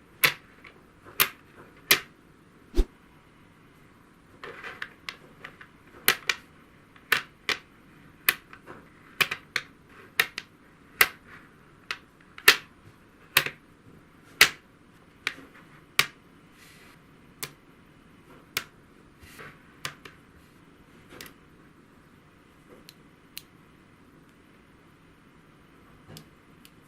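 A series of sharp clicks and taps from hard objects, at an uneven pace of one or two a second, growing sparse near the end.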